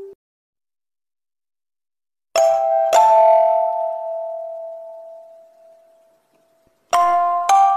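Silence for about two seconds, then a two-note bell-like chime, ding-dong, struck about half a second apart and left to ring and fade slowly. The same ding-dong comes again near the end.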